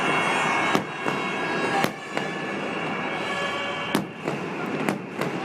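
Fireworks display: about six sharp bangs of bursting shells, spaced irregularly, over a dense continuous noise.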